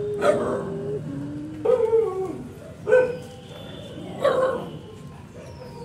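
Dog whining and yelping: a long held whine, a lower shorter one, then three short cries that fall in pitch.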